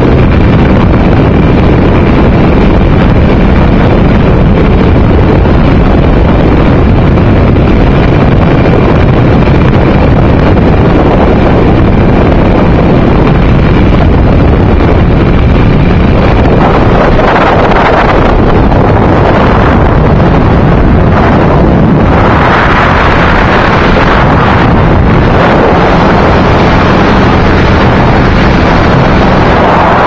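Heavy wind buffeting the microphone of an open-cockpit light aircraft in flight, over the steady running of its engine. The wind swells louder in gusts about two-thirds of the way through and again near the end.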